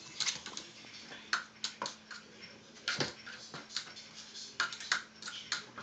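Irregular light clicks and taps, a dozen or more, from a house cat's paws and claws on a cardboard box, over a faint steady hum.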